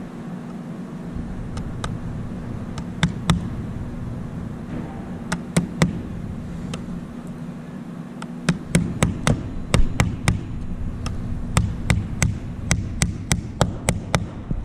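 Small hammer tapping tiny nails through a plywood gusset plate into the wood strips of an aircraft wood rib, the nail held in needle-nose pliers. A few scattered taps come first, then a quick run of light taps in the second half, over a steady background hum.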